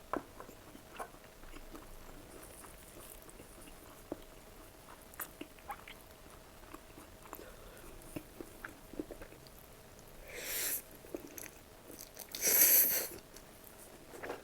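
Close-miked eating sounds: quiet chewing with small wet mouth clicks, then two louder noisy bites or slurps, one about ten seconds in and a louder, longer one about twelve and a half seconds in.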